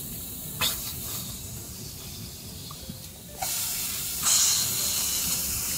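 Slices of beef tongue sizzling in a hot pot on a portable gas stove; the sizzle jumps louder about three and a half seconds in and again a second later as more slices go into the pot. A light tap about half a second in.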